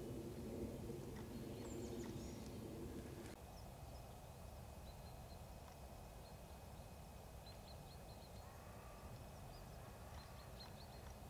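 Faint outdoor ambience with scattered short, high chirps of small birds. During the first three seconds a low droning hum of several steady tones sits underneath, then cuts off suddenly.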